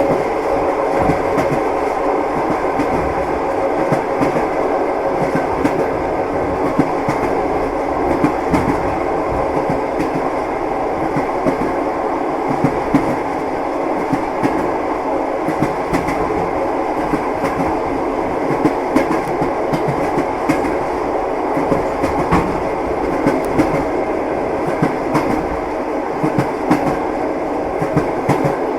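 Train wheels clattering over the rail joints, a steady rumble of the moving train with frequent sharp clicks and knocks.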